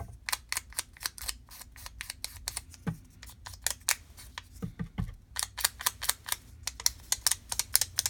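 Quick, scratchy scraping strokes along the edge of a vellum die cut as it is distressed, several a second in an uneven rhythm. A few duller knocks come about three and five seconds in.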